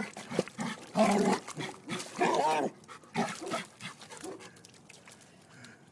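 Chesapeake Bay Retriever giving a run of short, pitched calls, each rising and falling in pitch, about four in all, dying away a little past the middle.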